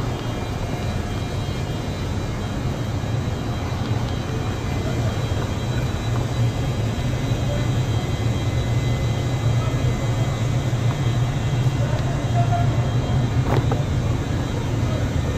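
Steady low running rumble of a moving electric train, heard from on board, with faint thin whines above it.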